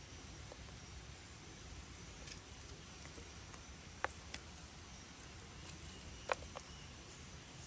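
Quiet steady background hiss with a few small sharp clicks, two about four seconds in and two more a little after six seconds: a rough lump of iron smelting slag being handled and turned over in bare hands.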